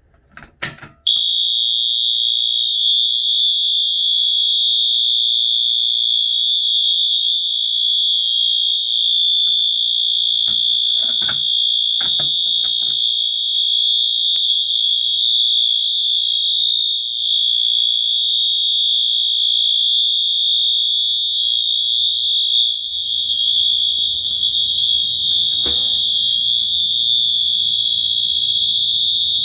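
Wheelock MT-24-LSM multitone horn strobe sounding its continuous horn tone: one steady high-pitched tone that switches on about a second in and holds unbroken, with a few faint clicks beneath it. The fire alarm system is in alarm.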